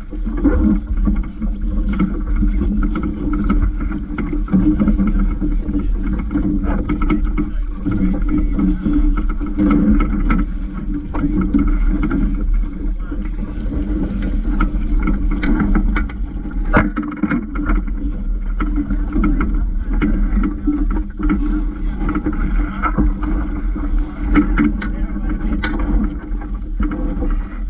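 Water washing steadily against the hull of a small sailing dinghy under way, with wind rumbling on the microphone and scattered knocks from the boat's fittings.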